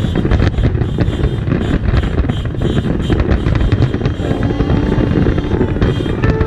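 A fireworks display in rapid barrage: dense, continuous bangs and crackles over a deep rumble, with music playing at the same time.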